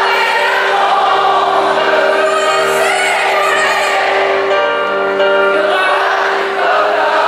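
Live pop ballad: piano with sung vocals, many voices singing together.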